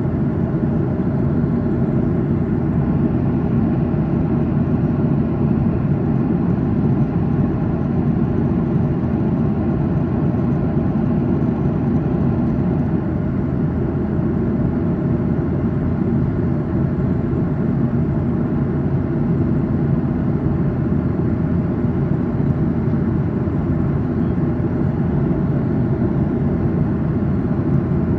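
Steady cabin noise inside a Boeing 737-800 in flight: the deep, even drone of its CFM56-7B jet engines and airflow past the fuselage, heard from a window seat behind the wing.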